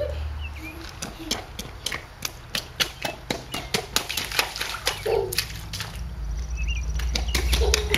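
Children's rubber rain boots stomping and splashing in a shallow puddle on wet pavement: quick repeated slaps of water, about three a second.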